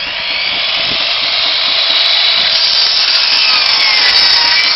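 Electric mitre saw running at full speed with a loud, steady whine as the blade cuts through a wooden board. The motor's pitch sags slightly and recovers partway through as the blade takes the load of the cut.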